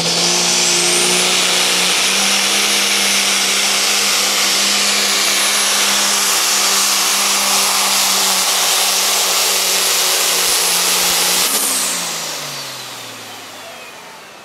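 Diesel pulling semi-truck's engine running flat out under load, with a high turbo whistle that climbs in the first second and then holds. About twelve seconds in, the driver lets off and the engine note and whistle wind down together.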